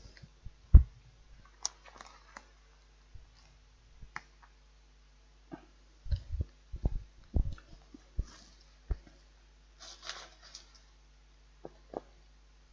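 Cutlery clicking and knocking against a plastic microwave-meal tray while noodles are eaten. The taps are irregular, with a cluster of heavier knocks about six to seven and a half seconds in.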